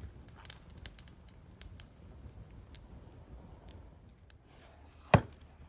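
Wood fire crackling in a clay-brick stove, with scattered sharp pops and one loud thump a little after five seconds in.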